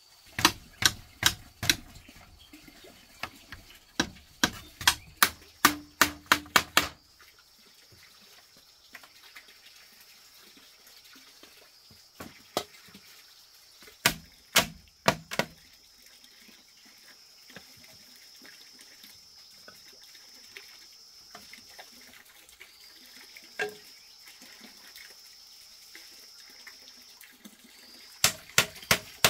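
A quick run of about a dozen sharp knocks, then a few scattered knocks, over a faint, steady, high-pitched whine.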